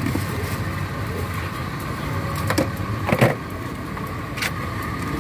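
Ladle and stainless-steel lid of a topping bin clicking and knocking about three times, the loudest near the middle, over a steady low motor-like hum.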